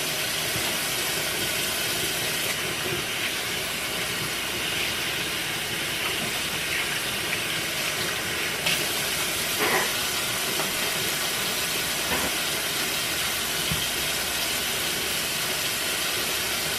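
Kitchen faucet running steadily into a stainless steel sink, the stream splashing over fish being rinsed by hand.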